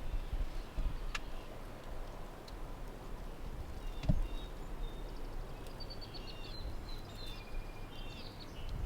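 Wind buffeting the microphone, with a single sharp knock about four seconds in. In the second half a small songbird chirps a quick, high twittering phrase for about three seconds.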